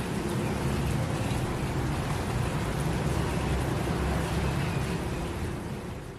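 Steady rain falling on paving, a dense even hiss with a low rumble underneath, fading in at the start and fading out near the end.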